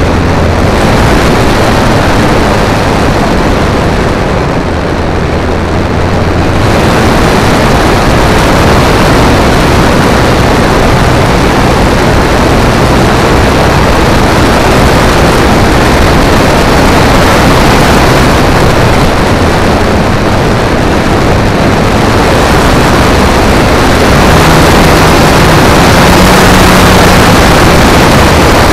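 Loud rushing airflow noise on an onboard camera's microphone during a model airplane's flight, mixed with the steady drone of its motor and propeller. The rush turns brighter and fuller about six seconds in.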